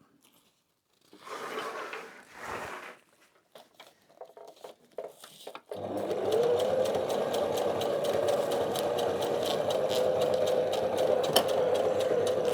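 Soft handling sounds and a few light clicks, then about six seconds in an electric sewing machine starts and runs steadily with a fast, even stitching rhythm, sewing backpack shoulder-strap webbing.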